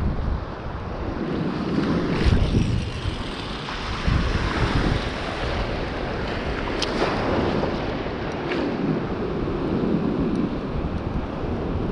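Shallow surf washing and breaking around a wading angler, with wind buffeting the microphone. A few brief sharp ticks rise above it.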